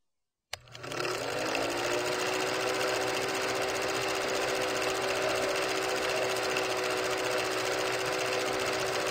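Film projector sound effect: the motor spins up, rising in pitch, about half a second in, then runs steadily with a fast, even clatter.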